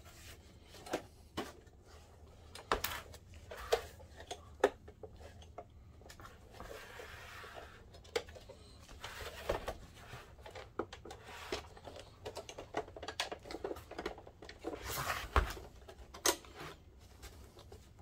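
Plastic case of a Dell 1650 DLP projector being handled and turned over on a workbench by gloved hands: scattered knocks and clicks of the plastic housing against the bench and hands, with a longer scraping rub about seven seconds in and a cluster of knocks near the end.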